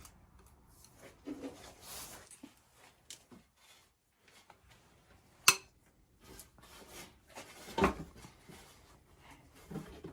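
Scattered metal clinks and clanks of engine parts and hand tools being handled on a Volvo B230 engine under teardown, with a sharp clink about five and a half seconds in and a heavier clank near eight seconds.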